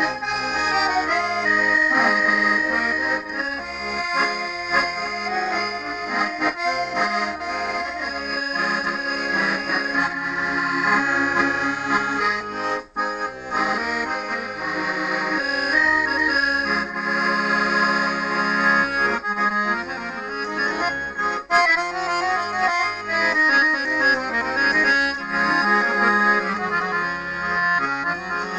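Button accordion playing a tune solo, a melody line moving over held chords. The sound drops out for an instant twice, about halfway through and again about three quarters of the way in.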